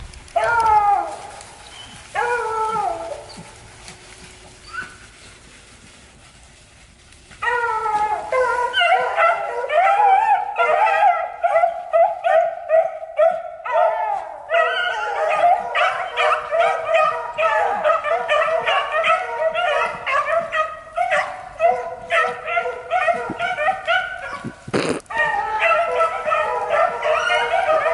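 A pack of beagles baying while running a rabbit's scent trail. Two separate howls come near the start, then after a short lull several hounds bay together almost without a break.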